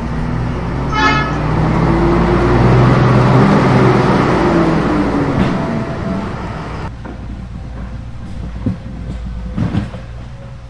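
A truck engine runs with shifting pitch, and a short horn toot sounds about a second in. A rushing noise swells and fades over the first seven seconds, and a few knocks follow near the end.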